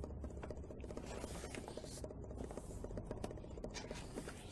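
Faint scraping and rustling of paper as hands handle and turn the pages of a handmade journal.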